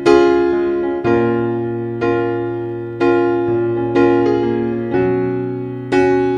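Background music: chords struck about once a second, each one fading before the next.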